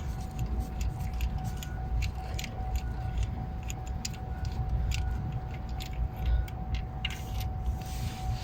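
Irregular metal clicks and clinks of a wrench and socket working loose and lifting out the cylinder 1 spark plug of a Chevy Tahoe's V8, over a low rumble. The plug is being pulled to check a cylinder 1 misfire.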